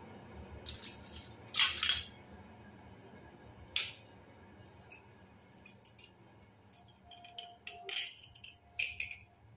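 Wet slate pencils clicking and clinking against one another and against a stainless steel bowl as they are rubbed clean by hand. The taps come irregularly, with the loudest pair about a second and a half in.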